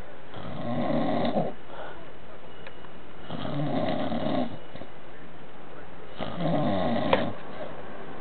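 Snoring: three long, rasping snores about three seconds apart, with a short sharp click during the third.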